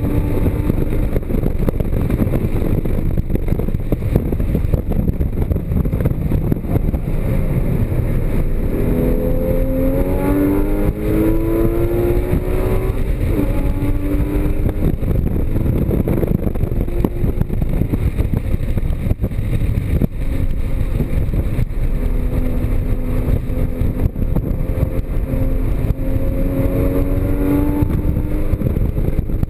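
Porsche Cayman GTS's flat-six engine at track speed under heavy road and wind noise. The engine note climbs as the car accelerates about ten seconds in, drops back briefly, and climbs again over the last several seconds.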